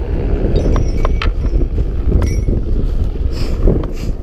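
Heavy wind noise buffeting the microphone, with a few light clicks of metal rigging hardware being handled.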